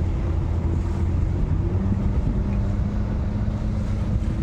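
Boat engine running steadily with a low, even hum.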